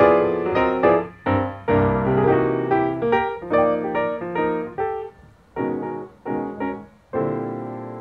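Piano music with notes struck in quick runs. About five seconds in it thins to a few separate chords, and a last chord struck near the end rings on and fades.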